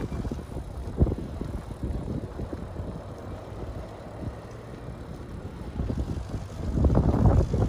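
Wind buffeting the microphone of a bicycle-mounted camera while riding, a low, gusty rumble that gets stronger near the end, with a single knock about a second in.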